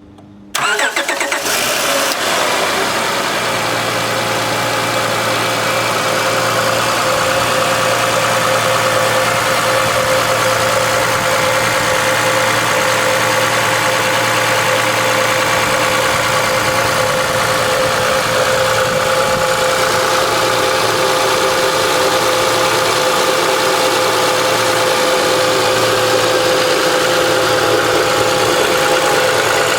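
2005 Honda Accord's 3.0-litre V6 engine starting about half a second in, then idling steadily. A whine drops in pitch over the first couple of seconds and then holds. The owner hears an engine noise he can't place, and wonders whether it is piston slap, valve ticking or injector clicking.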